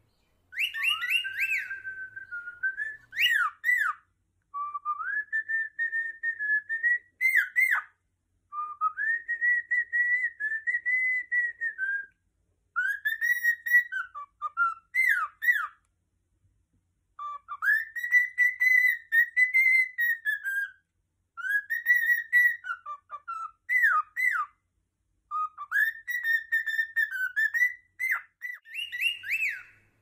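Cockatiel whistling a tune in about seven phrases of three to four seconds each, with short pauses between them. Each phrase is mostly a held, slightly wavering note that ends in a few quick up-and-down warbles.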